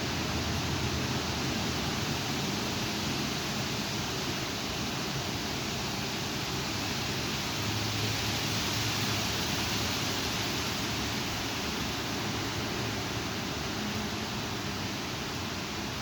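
Strong thunderstorm wind making a steady rushing noise, swelling slightly about halfway through.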